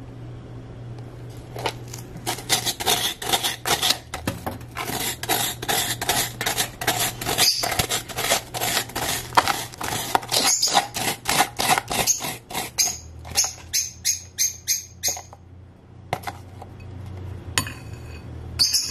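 Metal spoon scraping and scooping sofrito out of a plastic container into a ceramic bowl, in quick repeated strokes, with a short run of lighter, evenly spaced clicks near the end.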